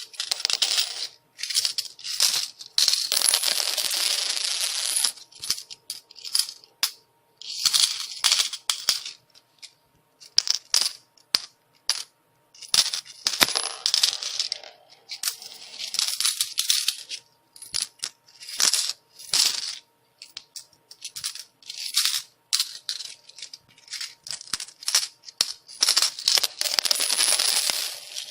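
Coins falling and clinking: repeated showers of jingling coins a second or more long, mixed with single sharp clinks and short pauses between them.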